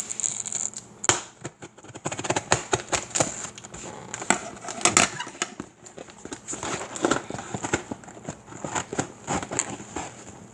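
A cardboard shipping box being opened by hand, with packing tape and cardboard crackling and tearing in a dense, irregular run of sharp clicks and rustles.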